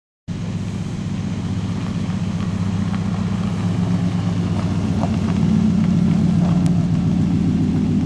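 Car running on the road, heard from inside the cabin: a steady low engine and road drone that starts suddenly and grows a little louder about halfway through.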